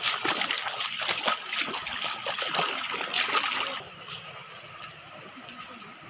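Footsteps splashing and sloshing through a shallow, rocky stream, irregular and close; the splashing stops about four seconds in, leaving the stream's steady trickle.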